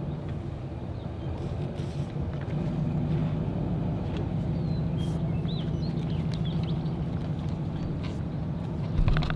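An engine idling steadily, an even low hum that grows a little louder about two and a half seconds in, with a knock near the end.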